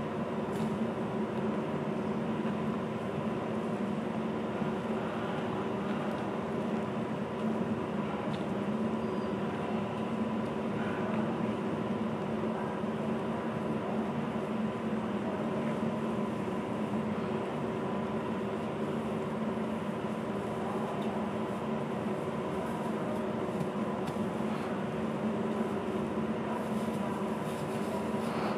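A steady mechanical hum with several held tones that never changes, like distant machinery running, with a few faint clicks over it.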